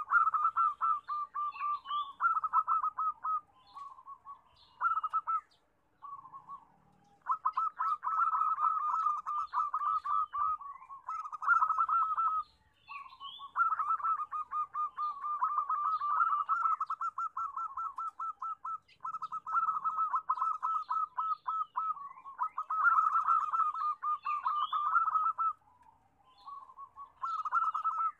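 Zebra dove (perkutut) cooing: long runs of rapid, staccato notes around one pitch, in bouts of several seconds with short breaks between them. Faint higher chirps sound behind.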